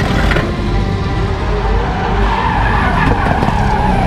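Drift car sliding sideways, its engine revving hard while the rear tyres screech, the screech growing louder about halfway through.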